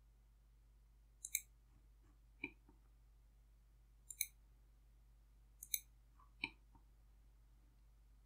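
Computer mouse button clicks over near silence: five short, sharp clicks spread over several seconds, three of them quick double clicks.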